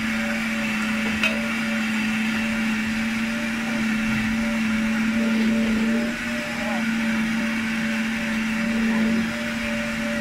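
Countertop blender running steadily as it blends leafy greens into juice, with a brief dip in the motor's hum about six seconds in.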